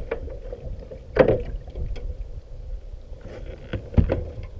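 Handling knocks and bumps aboard a fishing kayak, the loudest about a second in and another near the end, over a low rumble.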